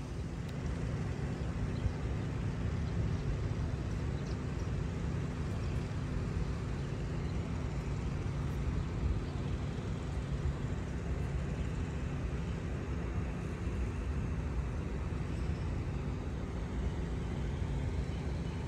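Steady outdoor road-traffic rumble with a constant low hum underneath.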